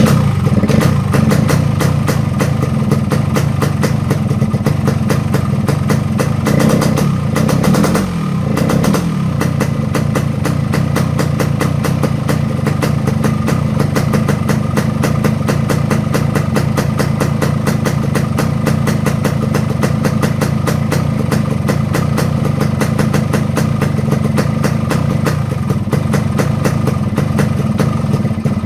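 Yamaha RX-King's 135 cc two-stroke single-cylinder engine running with its carburettor set for the rough, snoring 'ngorok' exhaust note, mostly at a steady idle. Its revs rise and fall briefly about seven seconds in.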